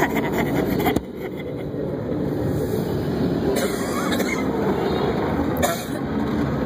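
Automatic car-wash tunnel machinery running, heard from inside the car: a steady low noise that drops suddenly about a second in, with two brief hissing spurts later on.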